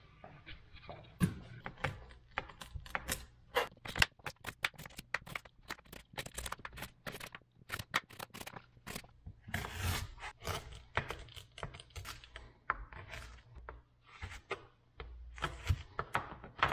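Large kitchen knife chopping fresh ginger root on a cutting board: quick uneven runs of sharp knocks as the blade hits the board, several a second, with a short lull about two-thirds of the way through.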